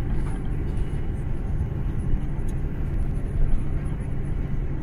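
Steady low rumble heard inside the cabin of an Airbus A330-343 rolling on the ground, its Rolls-Royce Trent 700 engines running.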